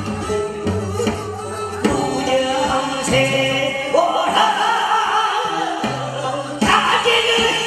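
A man singing a trot song into a handheld microphone over an amplified backing track with a steady bass line; his voice comes in strongly about two seconds in.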